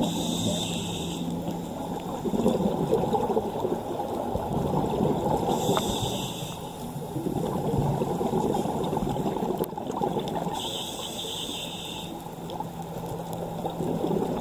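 Scuba diver breathing through a regulator, heard underwater: three hissing inhalations about five seconds apart, with bubbling of exhaled air between them.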